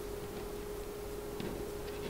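Quiet room tone with a steady faint hum, and two light ticks about one and a half seconds in as paper holly-leaf cut-outs are handled on the table.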